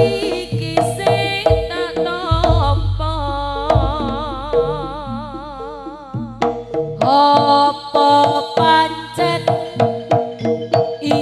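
Live Javanese jaranan ensemble music: hand drums keep a quick beat under a wavering melody line with a deep low drone. The music thins out about six seconds in and comes back fuller a second later.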